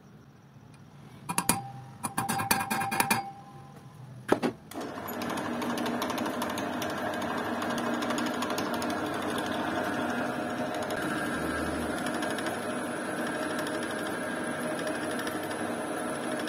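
A few metal knocks and clatter as the aluminium crankcase is set in place, then, about five seconds in, a drill press starts and runs steadily, its twist bit cutting into the welded aluminium patch on the crankcase.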